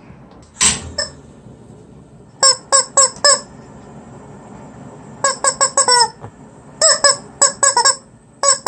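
Rubber chicken squeak toy squeezed in quick runs of four to six short squeaks, four times over. About a second in, two sharp clicks as the butane gas heater is lit.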